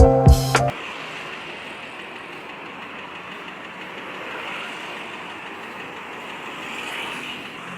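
A loud, multi-note pitched sound cuts off abruptly less than a second in, leaving a steady, even rush of road traffic noise.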